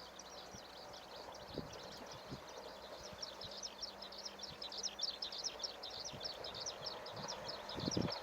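Small birds chirping: many short, high, quick calls that grow busier from about three seconds in, over faint outdoor background noise.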